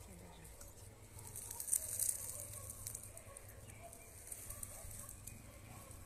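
Faint birdsong of a spring forest, with a brief crackling rustle of dry leaves and twigs about two seconds in.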